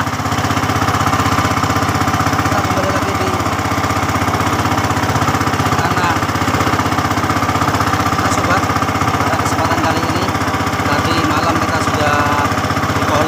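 A small boat's engine running steadily under way, a loud, even, rapidly pulsing drone with no change in speed.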